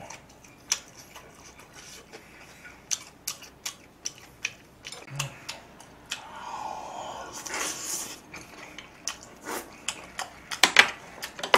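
Close-miked eating of braised beef and tofu: a wooden utensil clicking and tapping against a plate, with chewing and wet mouth sounds, and a longer breathy sound about seven seconds in.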